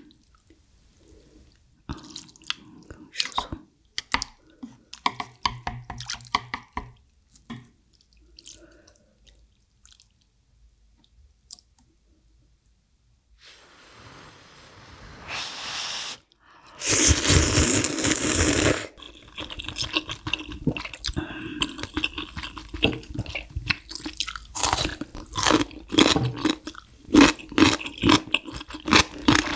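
Close-miked mukbang eating: soft chewing and small clicks, then about 17 seconds in a loud slurp of noodle soup lasting about two seconds, followed by dense wet chewing of the mouthful.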